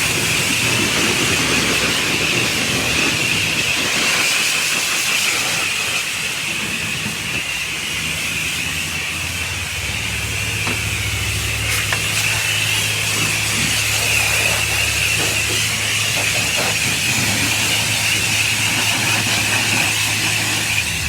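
Steady hiss of a high-pressure water spray at a car wash, over a low, even machine hum that grows stronger about halfway through.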